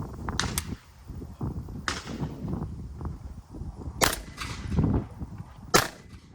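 Shotgun shots at a clay range: two sharp reports with a short echo in the second half, about a second and a half apart, with fainter cracks near the start.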